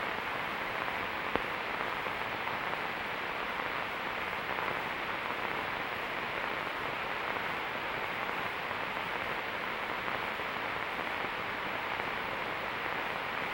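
Steady hiss of an old film soundtrack with nothing else playing, and one faint click about a second in.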